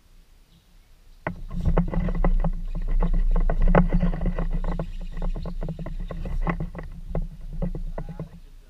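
Jackson Kayak Coosa HD being paddled: the paddle blades dip and splash, with many quick knocks and clicks against the hull and a low rumble, starting about a second in.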